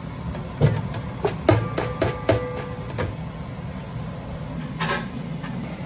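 Kitchenware being handled and put away: a run of sharp knocks and clinks, bunched together about two seconds in, with one strike leaving a short ringing tone.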